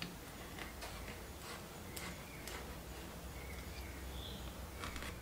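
Faint scratches and light clicks of a knife scoring lines into a slab of ginger candy that is starting to harden in a metal tray, over a low steady hum.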